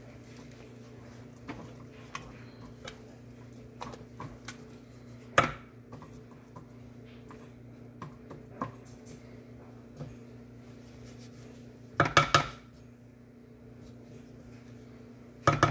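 Spatula scraping thick cake batter around the sides and bottom of a glass mixing bowl, with sharp knocks of the spatula against the glass about five seconds in, a quick cluster of knocks around twelve seconds and another near the end, over a faint steady hum.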